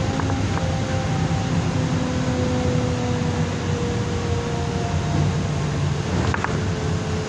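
LiAZ-5292 city bus heard from inside the passenger cabin while driving: a steady low rumble of engine and road noise with a faint whine that slowly falls in pitch. A short click or rattle comes about six seconds in.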